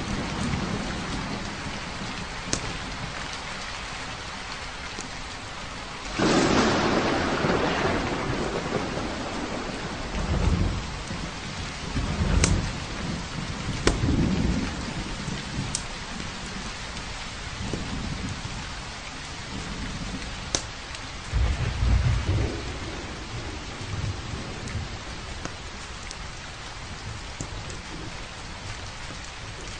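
Steady rain with thunder: a sudden loud clap about six seconds in that fades out, then several low rumbles rolling through. A few sharp pops from a crackling wood fire are heard now and then.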